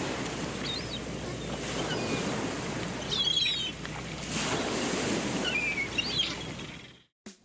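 Ocean surf washing steadily, with a few short, high bird chirps over it. It fades out near the end.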